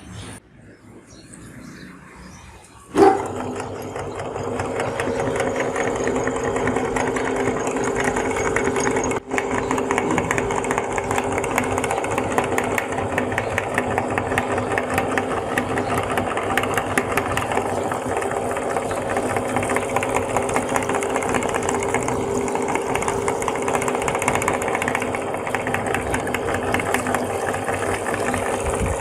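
Electric meat grinder switched on about three seconds in, its motor and auger then running steadily with a dense ticking texture as it grinds jelly.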